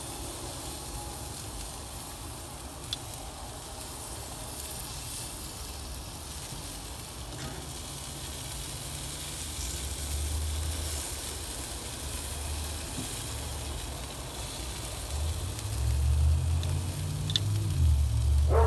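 Barbecue-sauce-glazed beef brisket and chicken wings sizzling steadily on a grill grate over a wood fire. A low rumble comes and goes in the second half.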